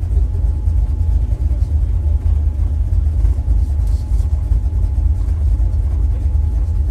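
Truck engine idling, a steady low rumble heard from inside the cab.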